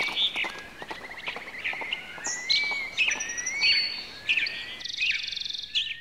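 Wild birds singing, a mix of short chirps and rising whistled notes, with a buzzy trill about five seconds in.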